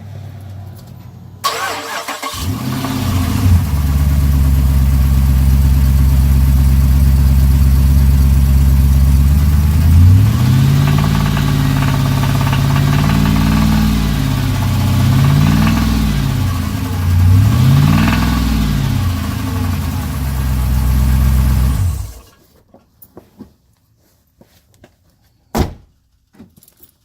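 Jeep Grand Cherokee SRT8's 6.1-litre HEMI V8 starting, idling, then revved up and dropped back about three times before it is switched off. The owner hears a knock at around 2000 rpm that goes away around 3000 rpm. A few faint clicks and one sharp click follow the shutdown.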